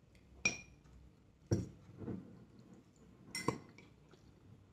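Spoon and chopsticks clinking against ceramic noodle bowls at a meal: a short ringing clink about half a second in, a duller knock about a second and a half in, and another clink about three and a half seconds in.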